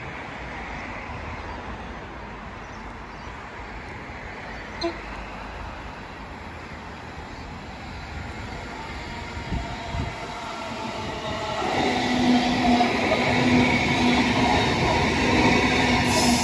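Queensland Rail suburban electric multiple-unit train approaching from a distance and then running past close by. Faint outdoor background gives way about twelve seconds in to the louder rumble of wheels on track, with a steady electric hum from the train.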